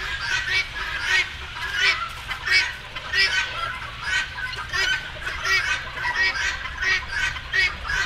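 A large flock of wild birds calling as it flies over: many short calls overlap, a few each second, with a low steady rumble underneath.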